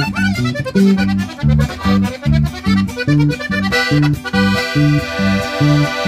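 Sierreño music played live on button accordion, electric bass and twelve-string acoustic guitar, with no singing: the accordion carries the melody over a bouncing bass line, then holds a long chord near the end.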